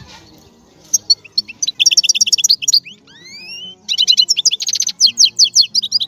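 A songbird singing: fast runs of repeated chirping notes and sweeping whistles, starting about a second in, over quiet background music.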